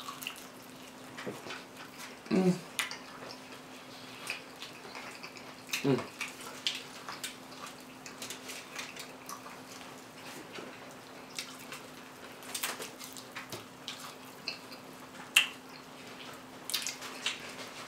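Close-miked mukbang eating sounds: scattered crunches, clicks and wet mouth sounds of chewing, sipping and swallowing, with a couple of short hums of enjoyment. A faint steady hum runs underneath.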